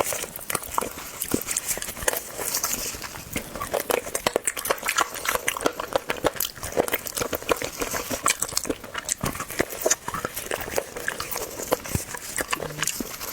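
Close-miked eating of a pig's trotter: wet biting, chewing and lip-smacking sounds, a dense run of irregular sharp clicks and crackles.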